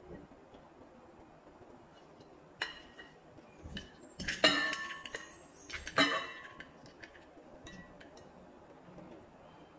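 Glass bowl clinking against a glass serving bowl as a roasted butternut squash and rocket salad is tipped from one into the other: three clear clinks, each ringing briefly, the loudest about halfway through, then a few faint ticks.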